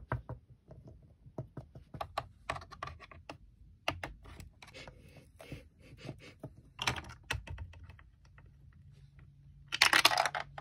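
Small plastic toy pet figures tapping and clicking irregularly against a plastic play set as a hand moves them about. A short, louder plastic rattle near the end as a piece of the play set is handled.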